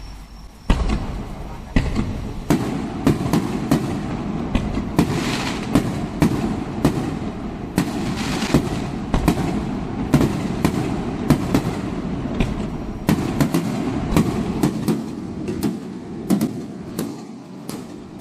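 Fireworks going off: a sudden start about a second in, then a dense, continuous run of sharp bangs and crackles, several a second.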